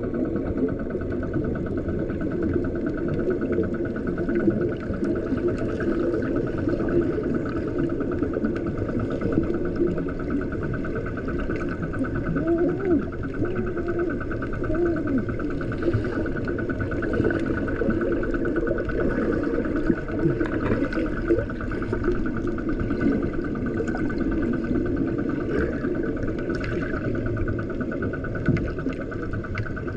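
A motor's steady pulsing drone carried through the water and heard underwater, muffled and even throughout.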